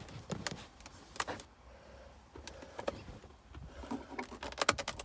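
Tape-wrapped screwdriver prying at a car's plastic console trim panel: scattered clicks and creaks of the plastic, then a quick run of clicks near the end.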